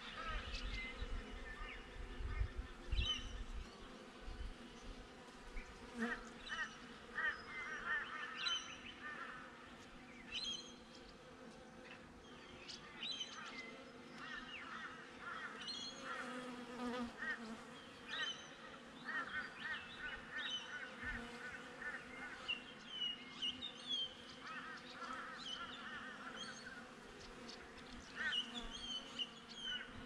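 Honey bees buzzing around a hive entrance as a steady hum, under repeated runs of loud honk-like bird calls and scattered higher chirps from birds nearby.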